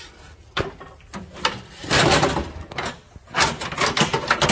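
Old Mercury throttle and shift cables being pulled out from under a boat, scraping and rubbing as they are dragged free: a few sharp clicks, then two longer, louder stretches of scraping.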